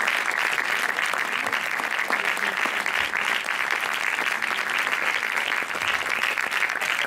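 An audience applauding: steady, dense clapping from many hands that holds at an even level throughout.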